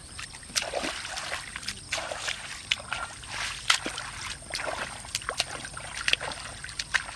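Hands and bare feet splashing and sloshing in shallow muddy water as a man gropes through the mud for fish, with irregular short wet splashes.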